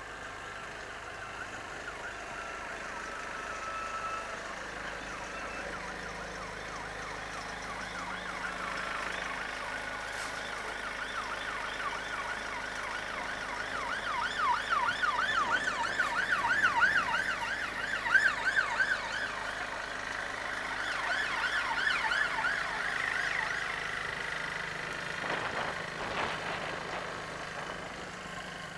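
An emergency vehicle's siren wailing in fast up-and-down sweeps, growing louder through the middle and fading away near the end.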